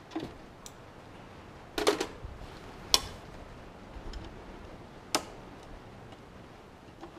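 A few scattered sharp clicks and knocks: a short cluster about two seconds in, the sharpest click just before three seconds, and another about five seconds in.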